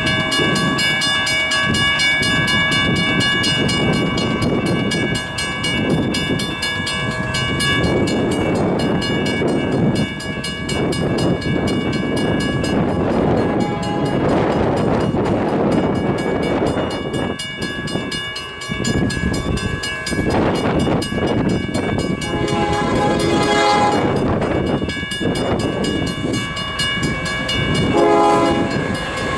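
An approaching Union Pacific freight train led by a GE C45ACCTE locomotive: its air horn sounds in several blasts in the last third, the last and loudest near the end, over a steady low rumble and buffeting wind.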